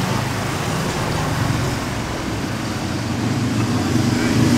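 Steady low rumble of busy night-market ambience, like traffic, with no distinct events, growing a little louder near the end.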